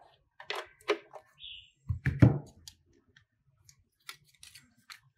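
Parts of an HP Z24i monitor stand being handled and set against one another: a few sharp clicks, a louder knock with a dull thump about two seconds in, then lighter clicks near the end.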